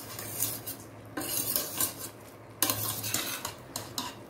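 Slotted spoon stirring and scraping rice and vegetables in the bottom of a pressure cooker, in several separate scraping strokes. The raw rice is being fried with the vegetables before the water goes in.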